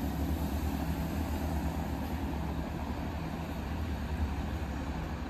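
Diesel engine of a Great Western Railway Networker Turbo multiple unit running with a steady low drone over the rumble of its wheels on the rails, growing slightly fainter as the train draws away.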